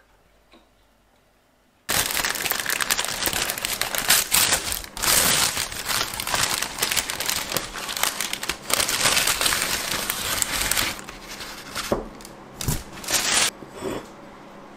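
Brown paper bakery bag crinkling and rustling as hands handle it and pull it away from a plate, starting suddenly about two seconds in and stopping with a few last crinkles near the end.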